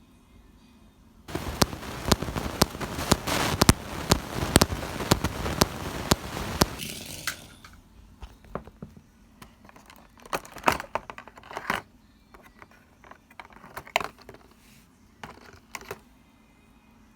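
Crinkling and rustling of toy packaging for about six seconds, full of sharp crackles. Then scattered clicks and knocks as plastic toy pieces are handled.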